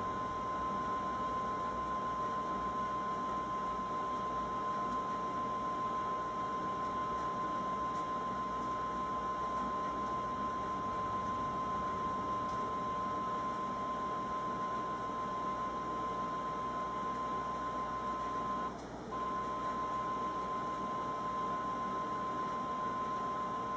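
Television with no input connected, sounding a steady single tone over static hiss while its screen shows snow. The sound drops out for a moment about three quarters of the way through.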